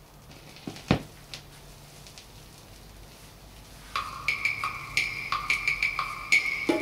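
Stylus of a Thorens TD 295 MK IV turntable lowered onto a vinyl record: a thump about a second in, then faint groove noise from the lead-in. About four seconds in the record's music starts over the speakers, with sharp, evenly repeated percussive strikes at two pitches, fuller near the end.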